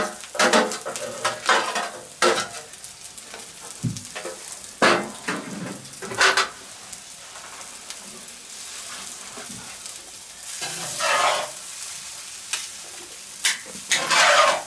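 Stir-fried vegetables, noodles and prawns sizzling on a seasoned grill pan over a charcoal fire, with tongs scraping the pan and tossing the food at irregular intervals. The sizzling swells louder about ten seconds in and again near the end.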